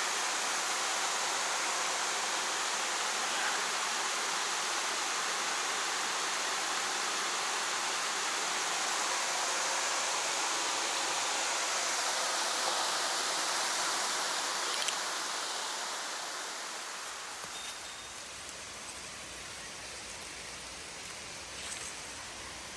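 Mountain stream running over rocks: a steady rush of water that falls somewhat quieter about three quarters of the way through.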